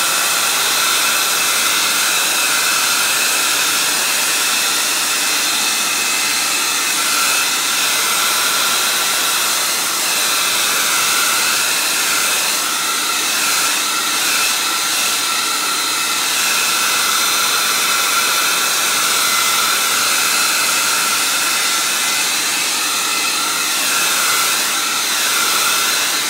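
Handheld hair dryer running on its hot setting: a steady rush of blown air with a faint whine, its tone wavering a little as it is swept over damp linen grille cloth to dry and shrink it.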